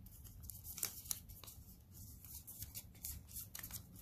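Folded origami paper crinkling and rustling faintly as fingers squeeze and crease it, in short irregular crackles.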